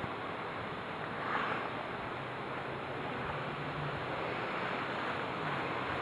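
Steady rushing noise like wind on the microphone, with a faint, on-and-off buzzing hum of honeybees flying around their hive.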